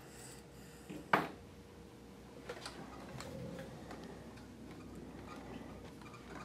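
A sharp click about a second in, then a few faint ticks as dog-grooming tools are handled at the grooming table, over a faint steady hum.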